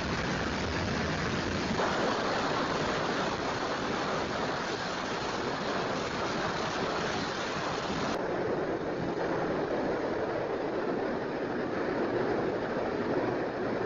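Steady rushing noise of ocean surf and wind, with abrupt shifts in its tone about two seconds in and again about eight seconds in.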